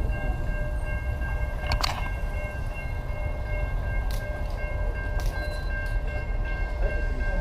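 Low rumble of wind and motion noise from a bicycle ride, with a steady high-pitched whine of several tones throughout and a few sharp clicks or knocks, the loudest about two seconds in.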